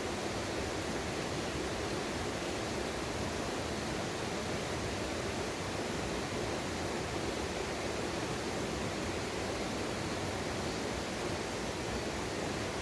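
Mountain valley stream rushing steadily over rocks.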